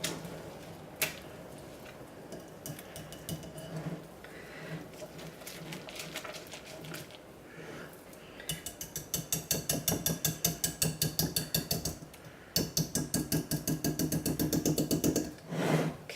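A utensil stirring and beating thick hot process soap paste in a bowl. Soft scraping with an occasional knock gives way to a fast, even clatter of about five strokes a second, in two runs with a short break between.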